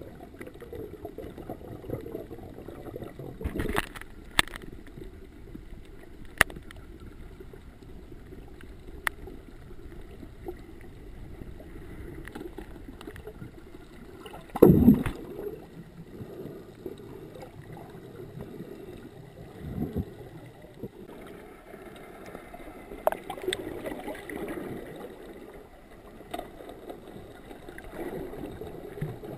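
Underwater sound through a camera's waterproof housing: a steady low rush of water, with scattered clicks and knocks on the housing and one loud thump about fifteen seconds in.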